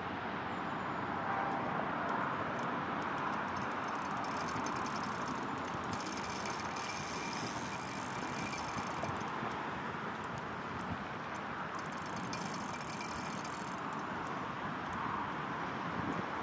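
Steady noise of distant road traffic, even throughout with no distinct events.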